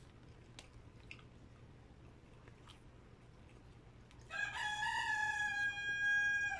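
A rooster crowing once, starting about four seconds in: a single crow of a little over two seconds that rises briefly and then holds a long steady note.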